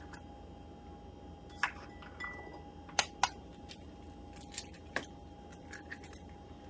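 Eggs being cracked one after another into a mixing bowl: a few sharp cracks and taps, two close together about three seconds in, over a faint steady hum.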